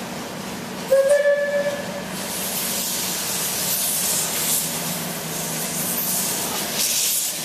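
A steam locomotive's whistle gives one short blast about a second in, followed by steady hissing of steam.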